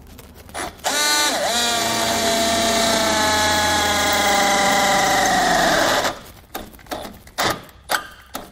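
Handheld power drill spinning up and boring a hole through a steel channel under a pickup, its whine rising quickly at the start, holding steady, then sinking slightly in pitch before it stops about six seconds in. A few short knocks and rattles follow.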